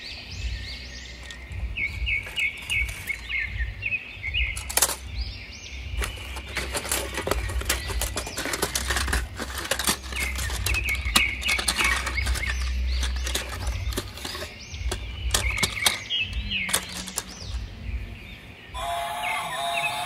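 Birds chirping in repeated short phrases over a busy clatter of clicks and knocks and a low rumble.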